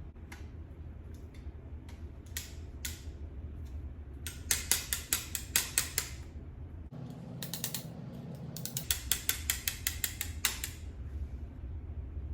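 Small clicking mechanism: a few single clicks, then two rapid ratchet-like runs of clicks.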